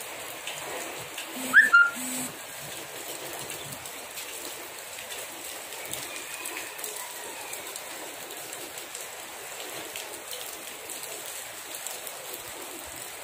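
Shallow rainwater running over a paved road, a steady wash, as bare feet wade through it. About one and a half seconds in comes a brief, louder two-part sound with a short chirp.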